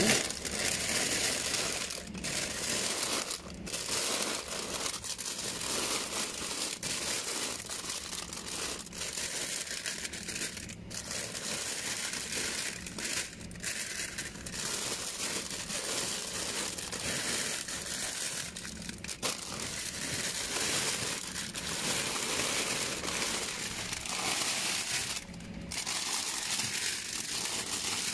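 Plastic bags of frozen calamari and other frozen snacks crinkling and rustling as hands rummage through a freezer bin, with frequent sharp crackles as packets are pulled and shifted.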